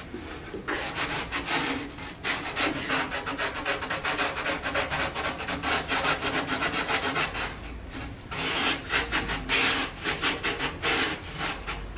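A hand brush scrubbing rust off the metal underside of a 1953 Chevrolet 3100 pickup's cab. It goes in rapid back-and-forth strokes, several a second, with a few short pauses.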